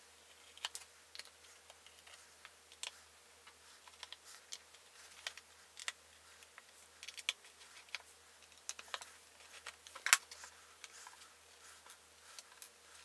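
Small screwdriver clicking and tapping on the tiny screws of a MacBook Pro's bottom case as they are backed out, with scattered light clicks at irregular intervals and one louder click about ten seconds in.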